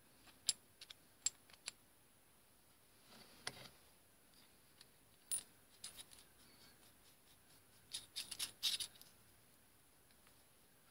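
Faint, scattered metallic clicks and clinks as a steel gear cutter is handled and slid onto its arbor over the key, with a quick run of clicks about eight seconds in.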